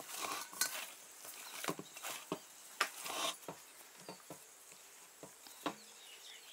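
Hands kneading soft, oiled chapati dough in a stainless steel bowl: faint, irregular squishes and light knocks as the dough is pressed and turned, thinning out near the end.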